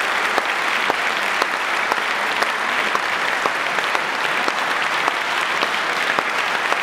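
Audience applause, dense and steady, with single sharper claps standing out from the crowd.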